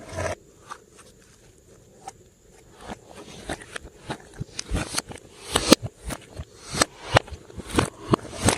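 Glossy slime being squished and kneaded, giving irregular sharp clicks and crackling pops that come more often and louder from about three seconds in.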